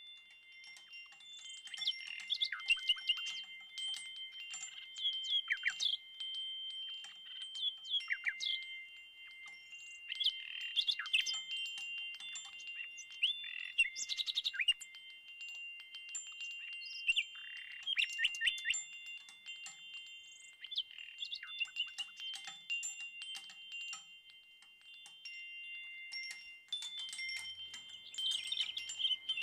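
Wind chimes ringing, several tones held and overlapping, with short bird chirps scattered between them.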